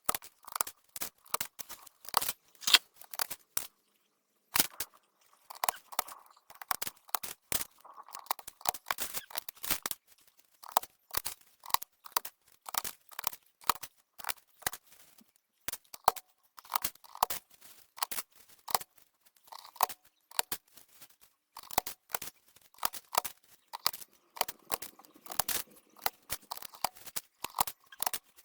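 Irregular plastic clicking from the HP SK-2502C membrane keyboard's keys and keycaps being pressed or fitted, several clicks a second with a few short pauses.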